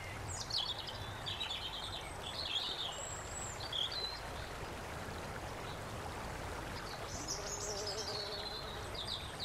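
Woodland ambience: songbirds calling in short chirping phrases, several times through, over a steady hiss of outdoor background noise. A faint low steady tone joins in about three-quarters of the way through.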